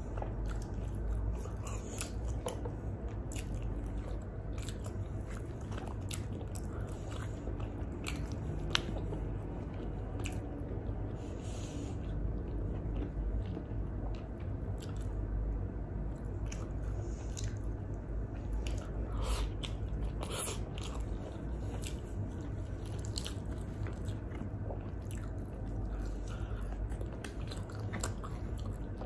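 Close-miked chewing and biting of grilled chicken and bread, with many scattered sharp mouth clicks.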